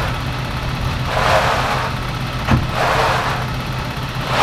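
Concrete mixer truck's diesel engine running steadily, with swishing bursts of wet concrete being poured and worked. A sharp knock comes about two and a half seconds in.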